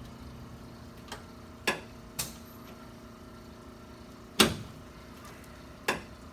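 Sharp clicks and knocks from a chiropractic adjustment on the treatment table, five in all, the loudest about four and a half seconds in, over a steady low hum.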